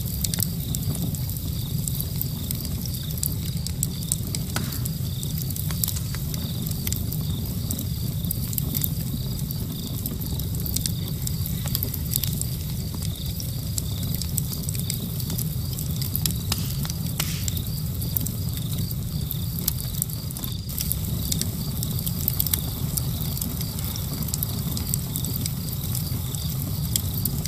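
Steady crackling: a constant scatter of small clicks and pops over a low rumble.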